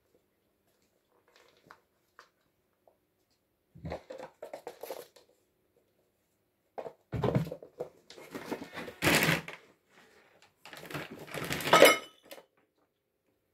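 Scuffling and scratching of kittens play-fighting on a hard floor, coming in irregular bursts after a few quiet seconds. The bursts are loudest in the second half.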